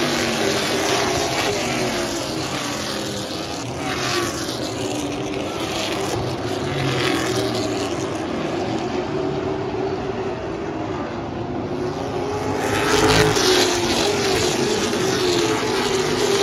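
A pack of stock cars racing around a short oval, the engine sound rising and falling as cars pass in front. It swells louder as groups go by, loudest near the end.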